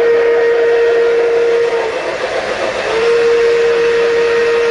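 Model steam locomotive's whistle blowing two long steady blasts, the first ending about two seconds in and the second starting about a second later, over the rumble of the train running along the track.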